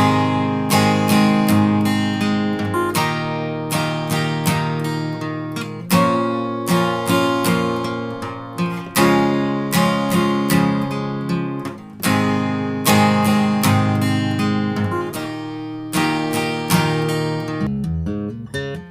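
Acoustic guitar music: strummed chords in a steady rhythm, starting abruptly and changing to a lighter picked pattern near the end.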